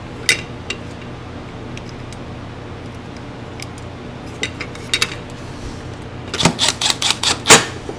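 Small metal clicks and clinks of bolts and a T-handle driver as two short bolts are started and turned into the top cover on a RedMax backpack blower's two-stroke engine. There are scattered single clicks, then a quicker run of louder clinks near the end.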